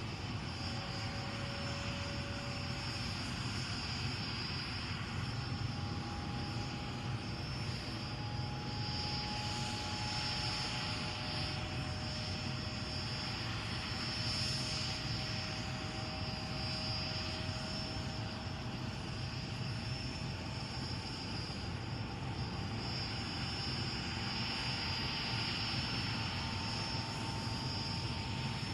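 Bell UH-1 "Huey" helicopter running steadily, with low rotor noise under a steady high turbine whine and a few faint tones that drift slowly in pitch.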